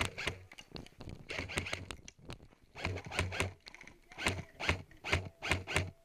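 Footsteps crunching on gravel, short scraping crunches each with a low thud, coming irregularly about two a second, with gear rustling.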